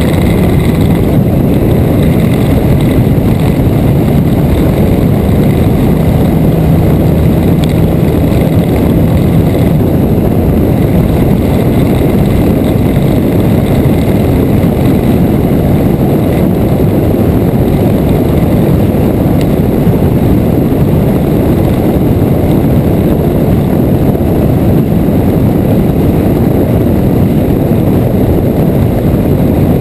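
A motorcycle cruising at road speed, heard through a camera mounted on the bike: a steady, loud rush of wind and engine noise. A steady low engine hum stands out for the first ten seconds or so, then sinks back into the wind.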